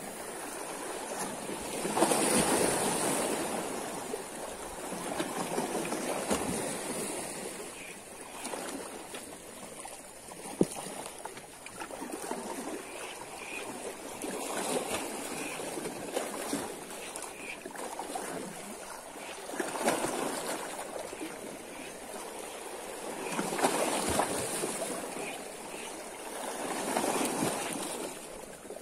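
Sea waves washing and splashing below, swelling and fading every few seconds.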